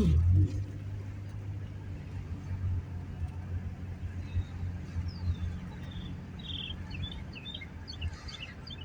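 Car engine and road noise, a steady low hum that starts with a loud falling drone. About halfway through, a run of short high chirping bird calls comes in, which the driver takes for a great crested flycatcher.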